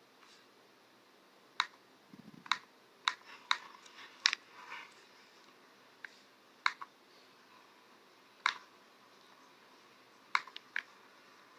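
Computer keyboard being typed on in a slow, irregular way: about a dozen single key clicks, a few in quick pairs, with pauses of a second or two between them. A soft low thump comes about two seconds in.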